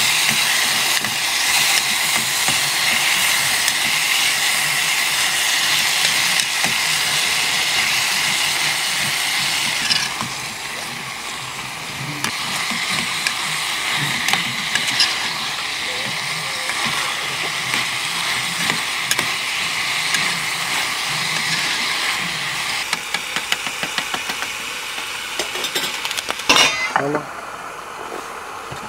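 Beef sizzling in sauce in a small aluminium camping pan over a portable gas stove, with a metal spatula stirring and scraping against the pan. The sizzle eases about a third of the way in, and a louder metal clank comes near the end.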